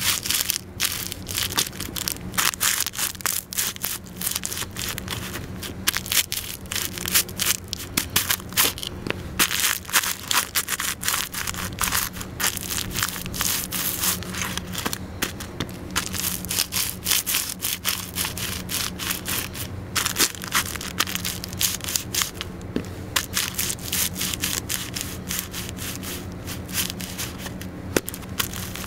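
Leather-soled Sebago beefroll loafers stomping on and grinding paper packets of instant oatmeal against concrete: continuous rapid crunching and crackling as the paper tears and the dry oats are crushed.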